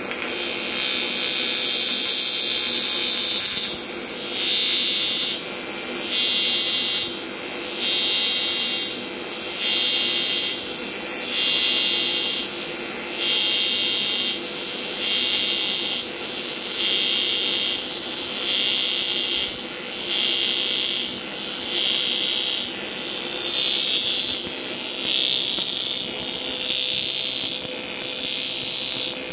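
TIG welding arc on aluminium buzzing steadily from a Primeweld welder, its hiss swelling and easing in a regular rhythm about every two seconds.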